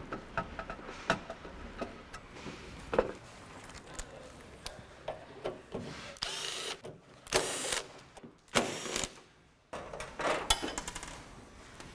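Ridgid cordless drill/driver whirring in about four short runs, backing screws out of the wine cooler's sheet-metal back panel. Light clicks and taps come first.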